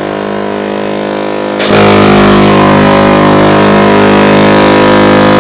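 A car horn held in one long, steady honk, jumping louder and harsher about a second and a half in.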